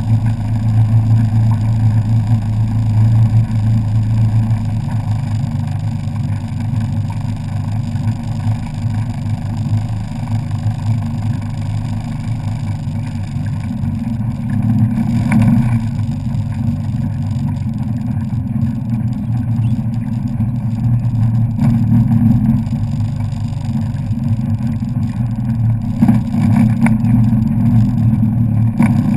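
Personal watercraft engine running steadily at cruising speed, a low drone under a haze of wind and water noise, with a couple of brief louder thumps about halfway through and near the end.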